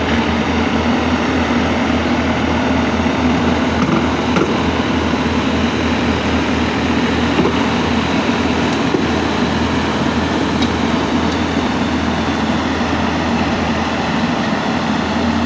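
Combine harvester diesel engine running at a steady speed, with a constant low hum.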